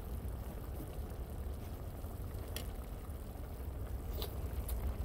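Steamed fish and okra simmering in a pan on a propane camp burner: a steady hiss over a low rumble, with a couple of faint clicks.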